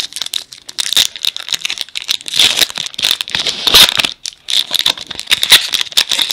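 Foil wrapper of a Topps baseball card pack being torn open and crinkled in the hands: a continuous crackling rustle, louder in a few bursts.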